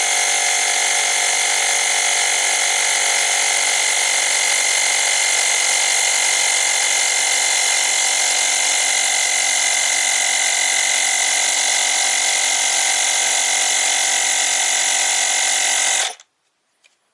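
Motopressor Minipump, a small electric tyre-inflator compressor, running steadily with a whine while it pumps up a tyre. It cuts off suddenly about sixteen seconds in.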